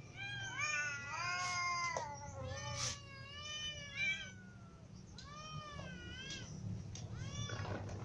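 Several hungry cats meowing over one another, many overlapping rising-and-falling meows at once, then a brief lull and a run of shorter arched meows in the second half. A couple of short sharp clicks sound among the meows early on.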